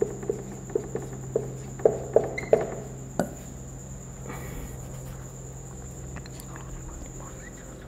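Felt-tip marker tapping and squeaking on a whiteboard as a line of writing is finished: a string of short sharp taps over the first few seconds, ending with a sharper click a little past three seconds. Under it a faint, steady high trill like a cricket's runs on, with a low electrical hum.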